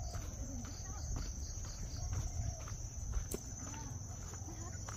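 A steady, high-pitched insect chorus with footsteps on a path and faint distant voices.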